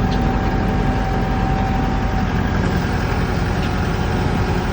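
Heavy diesel engine idling steadily, with a thin steady whine over it that stops about two seconds in.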